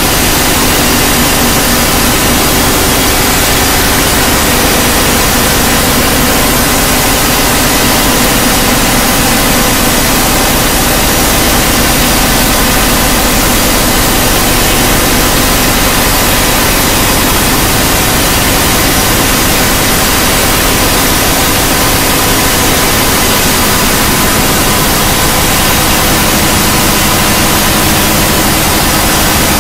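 Loud, steady electronic noise drone like dense static, with faint held tones underneath, from a dark ambient piece made on a Maneco Labs Grone and a Mutable Instruments Clouds granular module.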